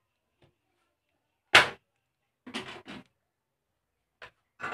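Short clacks and knocks of hands handling a plastic CRT base socket and its wires on a workbench: a loud clack about a second and a half in, a quick run of knocks near the middle, a small click and another clack at the end.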